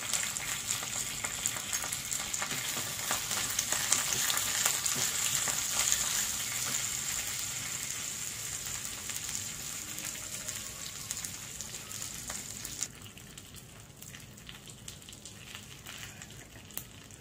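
A tempering of dry red chillies, mustard seeds and cumin sizzling and crackling in hot ghee in a small pan. The sizzle slowly fades, then stops abruptly about thirteen seconds in, leaving low background noise.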